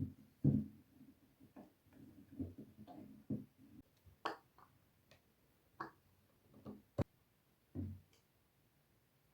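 Light knocks, taps and clicks of wooden yarn-holder parts being handled and fitted together, irregularly spaced, with one sharp click about seven seconds in.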